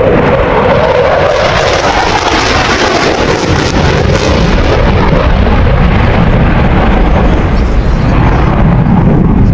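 Dassault Rafale C's twin Snecma M88 turbofans in afterburner: a loud, continuous jet roar. Its hiss is strongest a few seconds in, then gives way to a deeper rumble near the end as the jet flies away.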